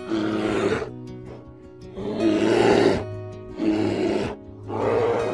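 Grizzly bear roaring: four rough roars, each a second or shorter, over background music.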